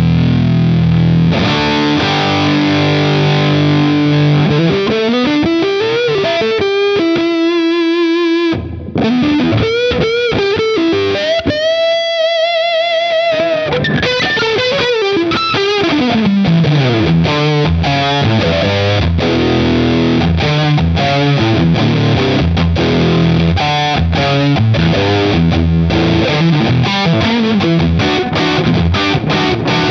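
Electric guitar played through an EarthQuaker Devices Acapulco Gold distortion pedal into a Vox AC30 on its clean channel, giving a thick distorted tone. Low chugging chords give way a few seconds in to a lead line with string bends and wide vibrato, with a brief break partway through, before rhythmic riffing resumes.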